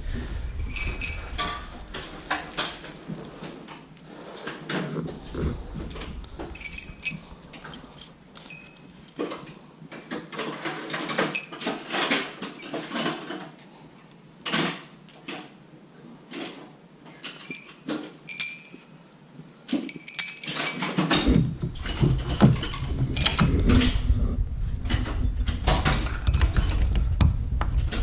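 Steel plow shims and washers clinking and jangling in scattered light clicks as they are handled and stacked onto a snow plow's skid-shoe post. A low rumble of handling joins in about three-quarters of the way through.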